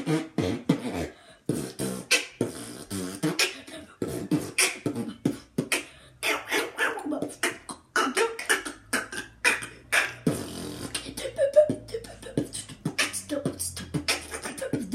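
A boy beatboxing: a fast, unbroken run of mouth-made drum beats, several a second, kick-like thumps with sharp clicks and hisses between them. For much of the second half a low steady tone is held under the beats.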